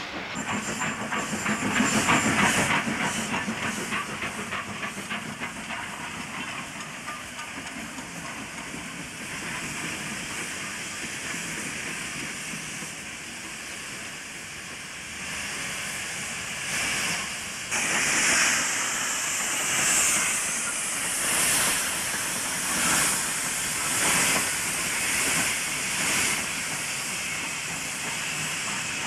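NSW 30-class steam tank locomotive hissing steam. About two-thirds of the way through, slow exhaust beats set in, a little over a second apart and coming gradually closer together, as the locomotive gets its train under way.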